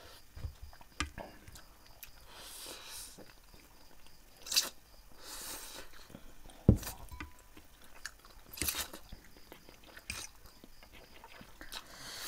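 Spicy instant noodles being slurped and chewed close to the microphone. Scattered sharp clicks run through it, with one louder knock just past the middle.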